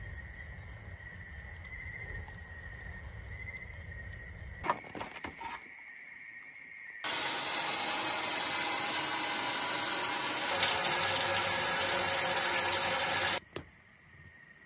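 Water running or pouring in a steady stream for about six seconds, a little louder near the end, starting and stopping abruptly. Before it there are a faint steady high tone and a few sharp clicks.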